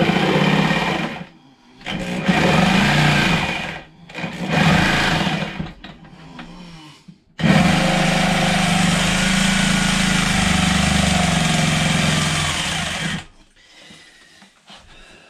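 Scrolling jigsaw cutting out a circle, run in three short bursts and then in one long run of about six seconds that stops near the end.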